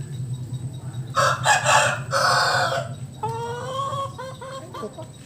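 Bangkok game rooster crowing: a loud, harsh call starting about a second in and lasting about a second and a half, followed by a trailing run of pitched, slightly rising notes. A steady low hum runs underneath.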